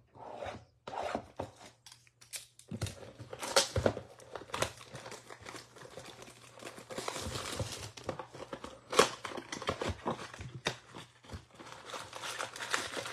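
Plastic wrap being torn off a Topps baseball card blaster box and crinkled, then the cardboard box opened: a run of sharp crackles, rustles and snaps, with one louder snap about nine seconds in.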